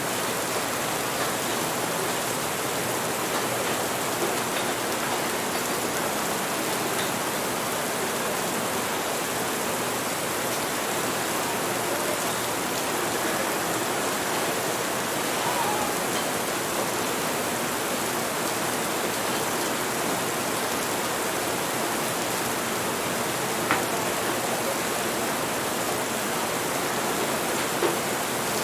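Steady rain, an even hiss with no breaks, with a few faint sharp clicks from the café ambience about halfway through and twice near the end.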